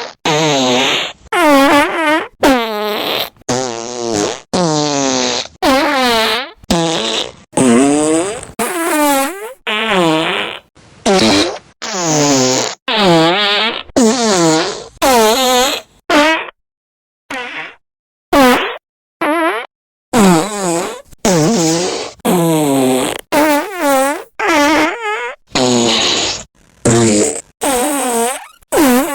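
A long series of fart sound effects, one after another, each a short blast under a second whose pitch bends up and down. There is a brief lull a little past the middle before they pick up again.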